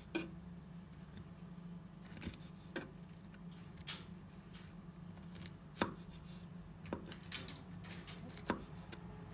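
Chef's knife slicing a green bell pepper into thin strips on a wooden cutting board: irregular sharp taps of the blade on the board, about one a second, with a steady low hum underneath.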